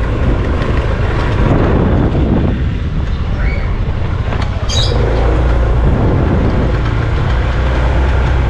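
Wind rumbling on the microphone over a motorcycle engine running steadily while riding, as a loud, even low roar.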